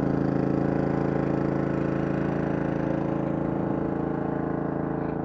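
Pressure washer's small engine running steadily at a constant speed, growing slightly fainter toward the end.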